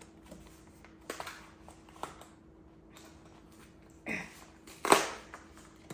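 Camera accessories and their packaging being handled: a few light clicks, then rustling and a sharp clack near the end, the loudest sound.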